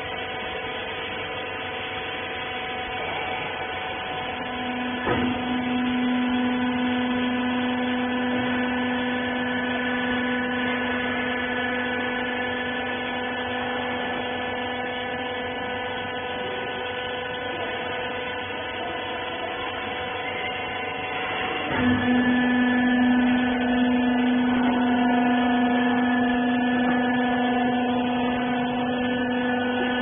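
Wiper baler's motor and hydraulic power pack running with a steady hum of several constant tones. About five seconds in and again about twenty-two seconds in, a knock is followed by a louder, deeper steady drone that holds for many seconds.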